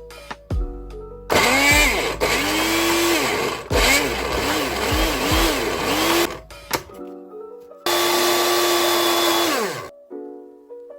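A small electric kitchen motor, blender-type, whirring in several short pulses, each spinning up and winding down, then one longer steady run that winds down about nine seconds in. Soft piano music plays underneath.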